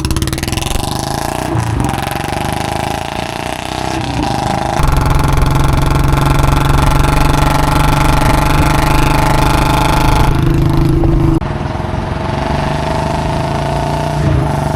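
Royal Enfield Bullet's single-cylinder engine running loudly through an aftermarket C-bend exhaust pipe fitted in place of the stock bend, as the bike is ridden. The steady engine note jumps suddenly in level and tone about five seconds in and again near eleven seconds.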